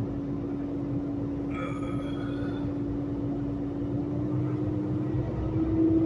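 Semi truck's diesel engine running as heard inside the cab while the truck pulls away slowly: a low, steady drone with one held tone that climbs a little in pitch near the end. A brief higher tone sounds about one and a half seconds in.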